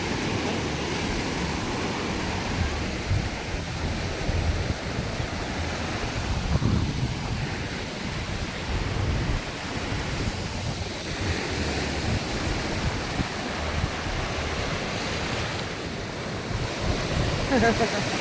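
Sea waves washing onto a sandy beach, with wind rumbling on the microphone in gusts.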